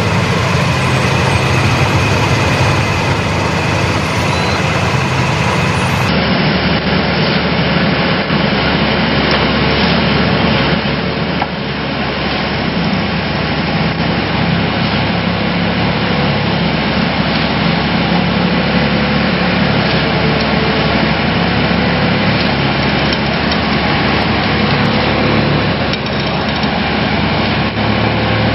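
Excavator-mounted hydraulic vibratory pile hammer running with the excavator's diesel engine under load: a loud, steady, dense machine hum, as when vibrating a steel sheet pile into the ground.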